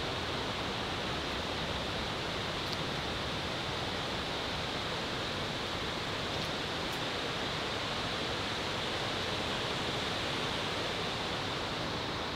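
Steady rushing of running water, an even hiss with no rhythm, with a couple of faint clicks about three and seven seconds in.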